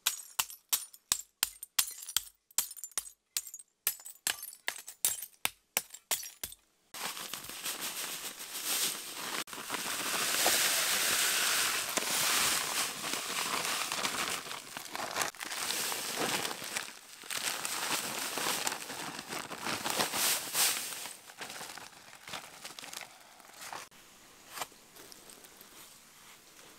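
A hatchet smashing a pile of brown glass beer bottles, sharp crunching blows about three a second for the first seven seconds. Then white powder is poured onto the broken glass in a steady hiss and crunch that thins out into scattered scrapes near the end.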